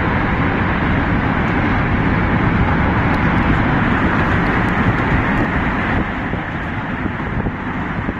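Steady car road and engine noise heard from inside the cabin while driving through a road tunnel, dropping a little in level about six seconds in.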